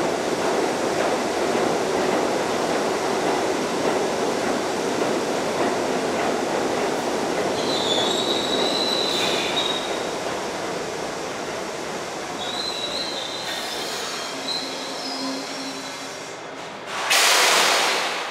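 New York City subway G train braking into a station: steady wheel and track rumble that fades as it slows, with high wheel squeals about eight and thirteen seconds in. As the train halts near the end, a loud burst of hissing air.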